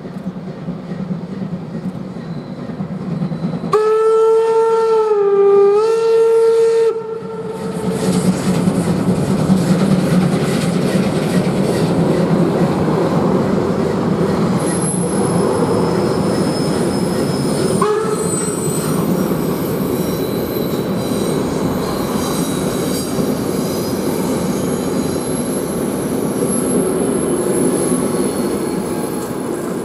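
DR class 50 steam locomotive 50 3648-8 sounds its whistle for about three seconds a few seconds in, one steady note that dips briefly in pitch before returning. Then the passenger train rolls across the viaduct with a steady rumble and wheel clatter, with a short rising note partway through.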